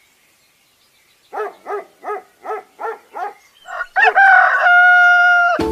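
Rooster crowing at dawn: a quick run of about seven clucking notes, then one long, loud crow held at a steady pitch about four seconds in.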